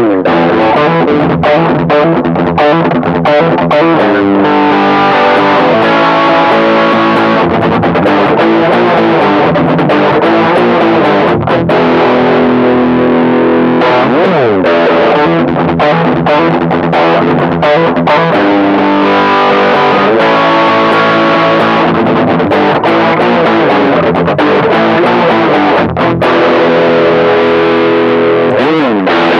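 Electric guitar played through a Caline High Peak distortion pedal: continuous heavily distorted chords and riffs, with a slide down the strings about halfway through and another near the end.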